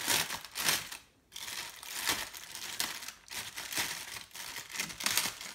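Clear plastic bag crinkling in a string of irregular bursts as it is handled and cut open at one end.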